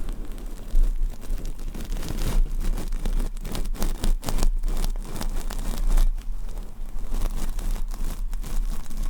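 Close-up crackling: a dense run of small clicks and rustles in quick succession, over a steady low rumble.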